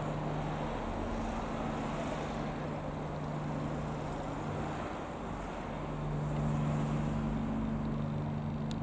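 Steady engine drone holding an even low pitch over a broad rushing noise, dipping briefly about five seconds in and swelling slightly around seven seconds in.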